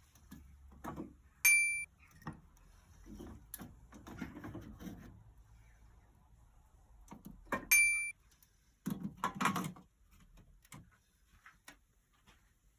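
Two short electronic beeps about six seconds apart, among scattered knocks and clattering handling sounds, with a louder burst of clatter near the end.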